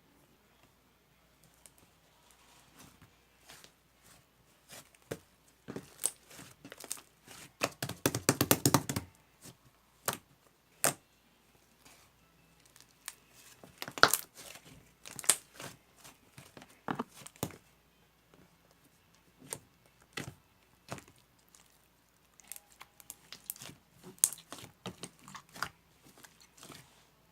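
Crinkly material being handled: intermittent crinkling and tearing rustles with scattered sharp clicks and taps, and a dense burst of rustling about eight seconds in that is the loudest.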